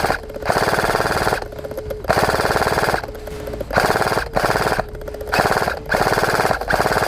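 Airsoft gun firing in full-auto, about seven short bursts of rapid clicking shots, each burst under a second long, with brief pauses between.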